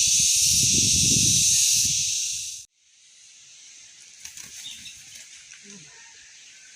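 Loud steady hiss that cuts off suddenly a little under three seconds in, leaving only faint background with a few small ticks.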